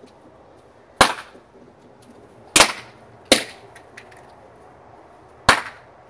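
Four sharp fireworks bangs, irregularly spaced over several seconds, each with a short fading echo.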